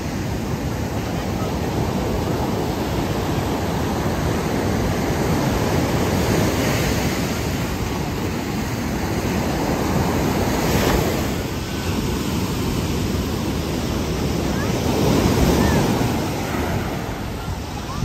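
Ocean surf washing onto a sandy beach, a steady rush of breaking waves that swells louder about eleven and again about fifteen seconds in.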